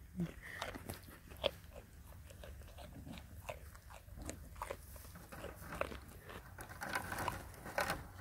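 A goat crunching and chewing a piece of raw carrot, with short, irregular crisp crunches. It bites into the carrot again near the end, and the crunches come thicker.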